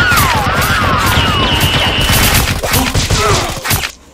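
Rapid automatic gunfire sound effect: a dense volley of shots with falling whistles over it, cutting off sharply about four seconds in.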